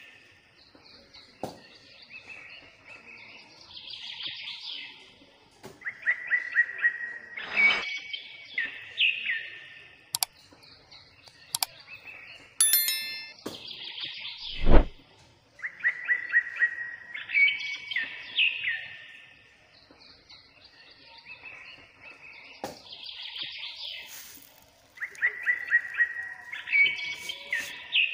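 A songbird singing: phrases of quick repeated notes that run into a higher trill, repeated every few seconds. About halfway through come a short bright chime and then a single low thud.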